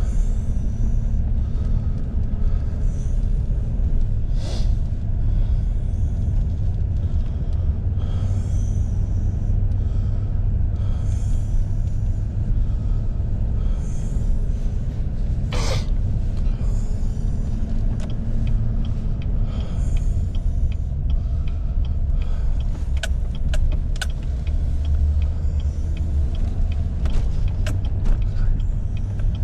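Pickup truck driving, a steady low road and engine rumble heard from inside the cab, with a brief sharp noise about halfway through and a run of light clicks near the end.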